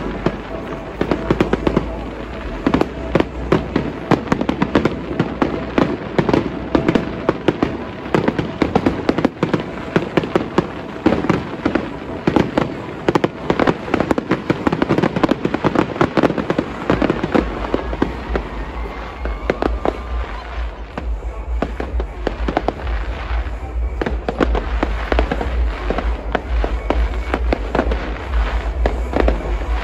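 Fireworks going off in a rapid, dense string of crackles and bangs. The bursts thin out in the second half.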